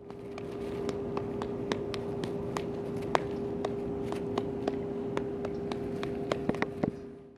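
A French bulldog puppy's footsteps on dry fallen leaves and grass: irregular sharp crackles, about three a second and bunched near the end, over a steady low hum.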